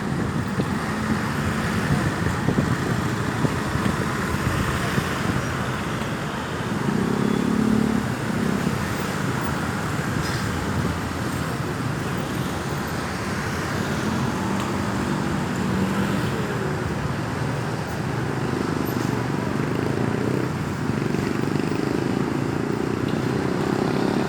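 Road traffic: a steady wash of tyre and road noise, with vehicle engines rising and fading as cars and motorcycles pass, several times.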